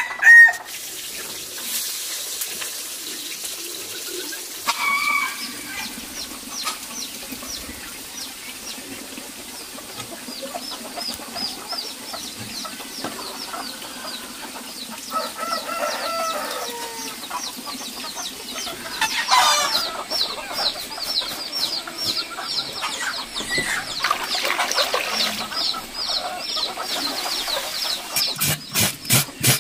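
Farmyard chickens clucking, with one louder call about two-thirds of the way in, over a steady run of rapid high chirping. A few sharp knocks come near the end.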